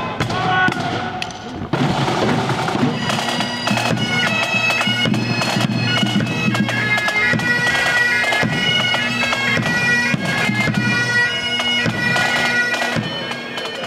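A pipe band playing: bagpipes sounding their steady drone under the tune, with drums beating. The pipes come in about two seconds in.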